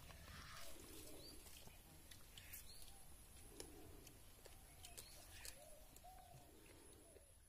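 Faint outdoor birdsong: many short arched calls, with a low dove-like coo about every three seconds, over a thin steady high tone.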